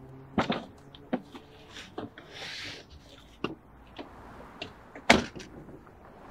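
Car passenger door being opened and shut from inside the car: several clicks and knocks of the handle and latch with a short rustle as a passenger climbs out, then the door shut with a solid knock about five seconds in, the loudest sound.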